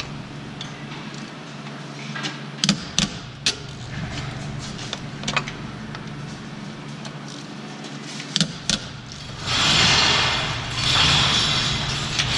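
Hand tools working on the bolts of a Nissan 300ZX's driveshaft, heard as scattered sharp metallic clinks and taps. About nine seconds in, a louder, longer stretch of rasping begins in uneven bursts, like a socket wrench being worked.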